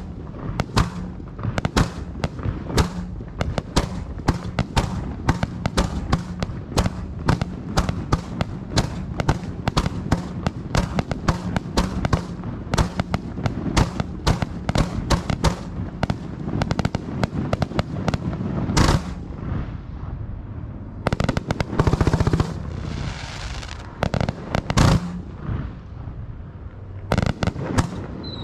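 Fireworks going off in rapid succession, several sharp bangs a second. The barrage thins out in the last third to a few single loud bursts and a stretch of hissing crackle.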